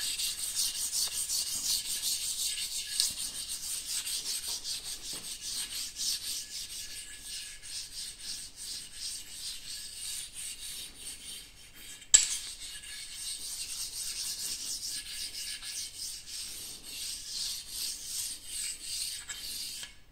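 A 2000-grit knife-sharpening whetstone rubbed by hand in quick back-and-forth strokes over a freshly scraped metal surface plate, a steady gritty hiss: the scraped surface is being deburred. A single sharp click about twelve seconds in.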